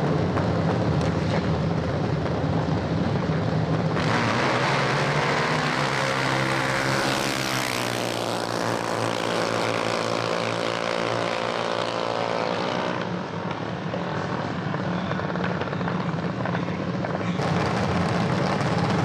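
Junior dragster's single-cylinder engine idling steadily, then running hard down the strip with its pitch falling from about 7 to 13 seconds in. It is back to a steady idle near the end.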